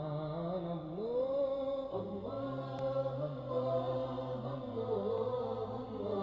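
Unaccompanied male vocal chanting of an Arabic religious nasheed, drawing out long held notes that slide slowly in pitch, with no words clearly sung.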